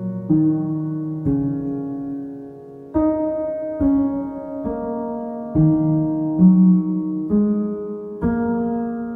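Slow, calm piano music: single notes and chords struck about once a second and left to ring and fade.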